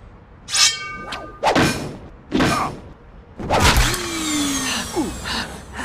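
A run of comic sound effects: a brief ringing tone, two swishes, then a loud crash with a low thud about three and a half seconds in, followed by a short falling tone.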